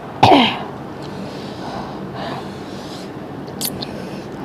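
Two people eating mutton curry and rice by hand over the steady noise of an electric fan. About a quarter second in comes a short voiced sound that falls in pitch, and a sharp click a little past three and a half seconds.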